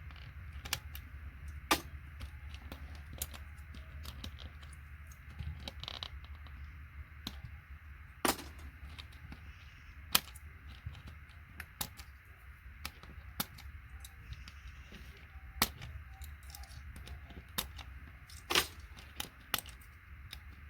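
Sharp plastic clicks and snaps at irregular intervals as keys are pried out of an old keyboard, with a few louder cracks among them. A low steady hum runs underneath.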